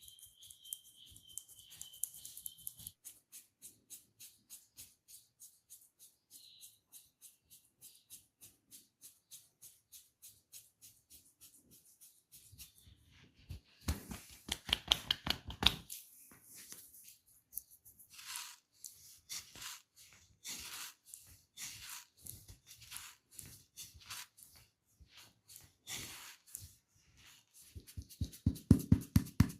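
Close-miked massage sounds from a barber's hands on a client's head and neck: a long run of quick rubbing and scratching strokes, denser and louder for a couple of seconds around the middle, then fast rhythmic hand strikes near the end.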